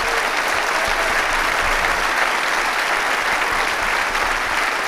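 A large theatre audience applauding steadily, a dense wash of many hands clapping.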